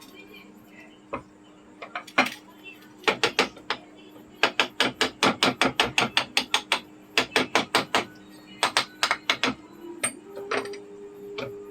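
Rapid sharp metallic taps on a ceiling fan's motor housing as it is being taken apart, coming in runs of about five strikes a second with short breaks between.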